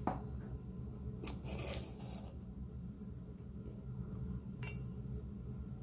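A kitchen knife being picked up and handled: a few light clinks and sharp clicks in the first two seconds, then quieter scraping and handling noises. A steady low hum runs underneath.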